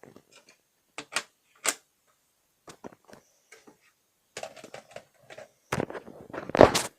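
Plastic parts of an Apollo S65 optical smoke detector being handled and fitted back together. It is a scattered series of light clicks and taps, busier in the second half, with the loudest knock near the end.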